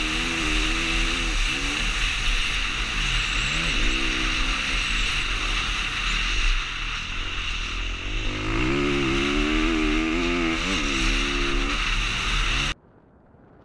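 Motocross bike engine revving up and dropping again and again through the gears as the bike is ridden round a dirt track, heard close from a helmet camera over steady rushing noise. It cuts off suddenly near the end, leaving only faint sound.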